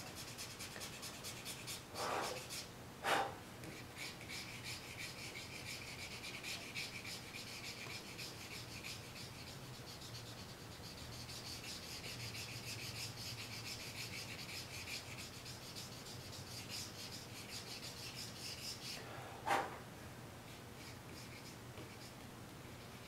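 A stick eraser rubbing over charcoal-covered drawing paper in fast, short, even back-and-forth strokes, lifting out horizontal highlights. There are a few soft knocks about two, three and nineteen seconds in, and the rubbing thins out near the end.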